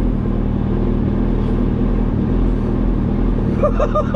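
Suzuki Hayabusa inline-four motorcycle engine swapped into a Japanese kei mini truck, running steadily, heard from inside the cab.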